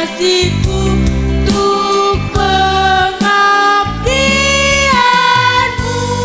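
School choir of teenage girls singing through the sound system with musical accompaniment under it. About four seconds in the voices rise and hold one note for about a second.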